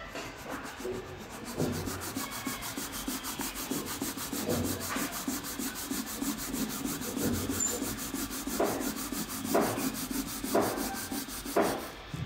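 A light green crayon scribbled rapidly back and forth across drawing paper, shading in a drawing with a steady scratchy rubbing. Near the end a few heavier strokes come about once a second.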